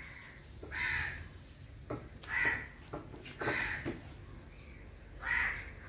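A crow cawing four times at intervals of one to two seconds, with a few faint clicks between the calls.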